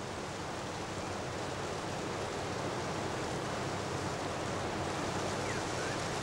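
Steady rush of flowing water from a forested mountain valley, even and unbroken, with a faint bird chirp near the end.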